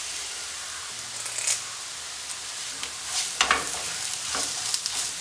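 Onion and spice masala with freshly added curry leaves sizzling in a nonstick frying pan, stirred with a wooden spatula that scrapes across the pan in a few strokes, the clearest about three and a half seconds in.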